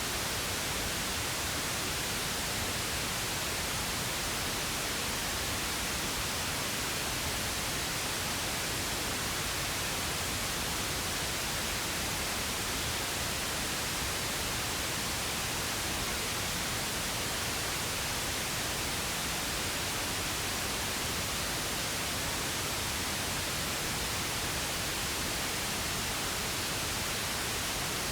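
Steady pink noise, an even hiss spread across the whole range of pitch, with no change at all.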